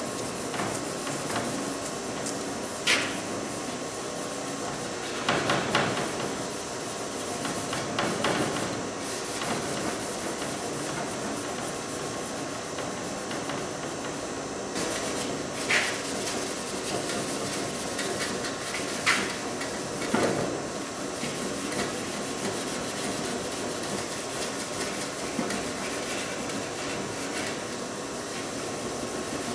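Scotch-Brite pad scuffing a chrome truck grille, a rough rubbing, with a handful of sharp knocks from the grille against the wooden work table.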